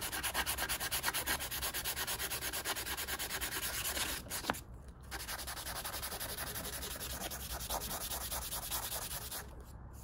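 Small clear plastic window piece from a toy car rubbed back and forth on sandpaper over a sanding pad in quick, even strokes, to sand off adhesive residue bedded into the plastic. The strokes break off briefly about four seconds in, resume more softly, and stop shortly before the end.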